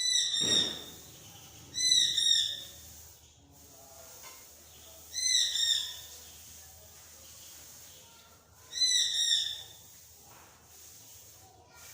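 Chickens chirping: four loud bursts of quick, high peeps, each well under a second, spaced two to three seconds apart, with fainter chirping in between.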